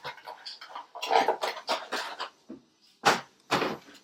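Unboxing packaging and accessories being handled: a quick run of rustles and clicks, with two sharper clicks about three seconds in.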